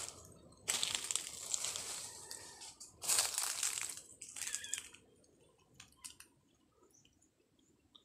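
Footsteps crunching and rustling through dry leaf litter and undergrowth in uneven bursts, stopping about five seconds in, with a few faint clicks after.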